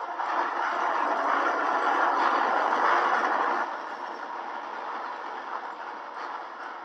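Loud rushing, rumbling noise of an apartment block collapsing floor onto floor, falling back to a lower roar after about three and a half seconds.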